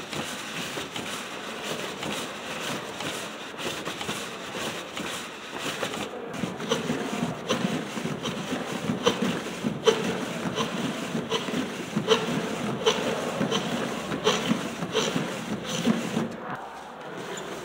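Hand-cranked cardboard automata: the cardboard crank, cams and stick followers rubbing and clicking as they turn. A steady rustle runs throughout, and from about six seconds in there are regular clicks, about one and a half a second.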